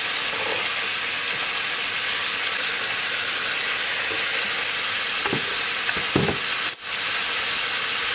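Chicken and onion sizzling in a frying pan, a steady hiss of frying, with a few brief knocks and a sharp click between about five and seven seconds in as the pan is worked.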